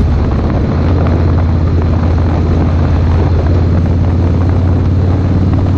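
Harley-Davidson V-twin motorcycle engine running at a steady speed while riding, with a constant low exhaust note and a noisy rush of wind over it.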